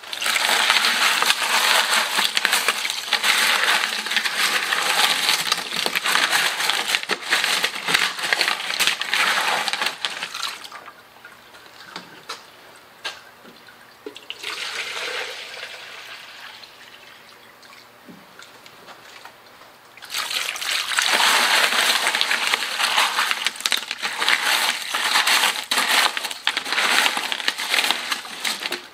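Water poured from a plastic jug over wet tumbled rocks and ceramic tumbling media in a plastic tub, rinsing off the 120/220 silicon carbide grit, with the stones and media clicking as a hand stirs them. Two long pours: the first stops about ten seconds in, a quieter trickle follows, and the second starts about twenty seconds in.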